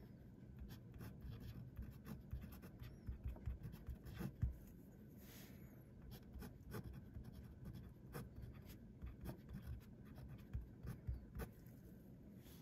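Parker 50 Falcon fountain pen's integrated nib scratching on paper as it writes, in many short strokes.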